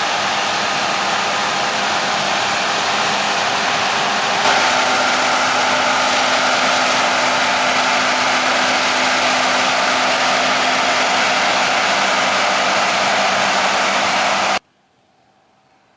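Large farm machinery running steadily at working speed: a loud engine hum under a dense mechanical hiss. The tone shifts slightly about four and a half seconds in, and the sound cuts off suddenly near the end, leaving only a faint background.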